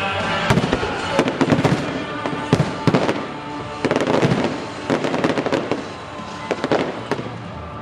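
Aerial fireworks bursting in rapid succession: many sharp overlapping bangs and crackles, thinning a little toward the end.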